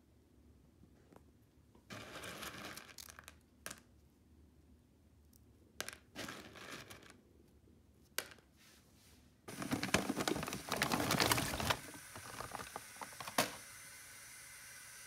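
Crinkling and rustling of plastic packaging and dry cereal being handled, in irregular bursts, the longest and loudest stretch about two-thirds of the way in, with a few sharp clicks. A faint steady hiss follows near the end.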